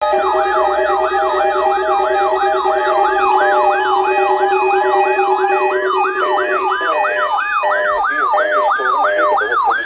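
Electronic siren yelping, its pitch sweeping up and down about two and a half times a second, over steady electronic tones that break up about two-thirds of the way through.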